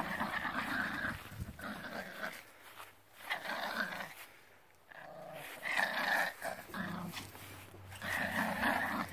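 Yorkshire terrier puppy play-growling in several short bouts.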